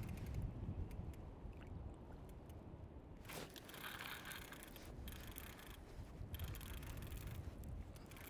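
Faint water lapping against a kayak's hull, over a low rumble, with a few small clicks and knocks and a brief swish about three seconds in.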